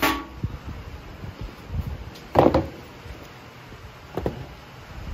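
Knocks and a clatter of hard parts being handled during a rear-door table install: a sharp knock at the start, a louder clatter about two and a half seconds in, and a smaller knock near the end.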